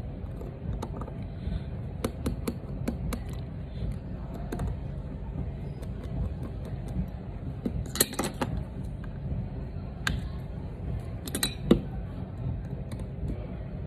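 Light clicks and taps of a small screwdriver and fingers handling an iPhone 7, with two sharper clicks about eight and eleven and a half seconds in, over a steady low hum.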